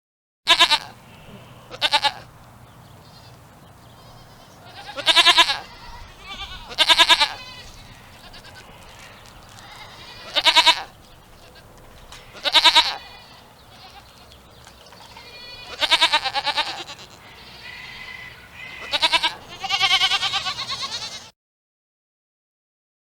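Goats bleating: about nine wavering bleats a few seconds apart, two of them longer than the rest, over a faint steady background. The sound cuts off abruptly about two seconds before the end.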